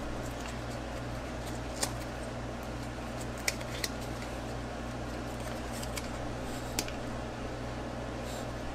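Paper sticker being peeled from its backing and handled, giving a few faint crinkles and short sharp clicks over a steady low hum.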